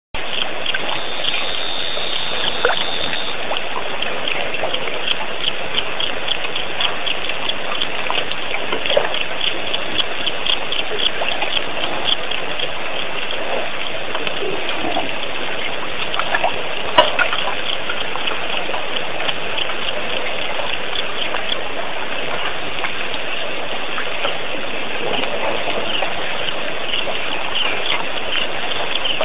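Steady night-time outdoor ambience: a dense chorus of rapid, high chirps over a continuous hiss, with a couple of sharp clicks, one of them loud around the middle.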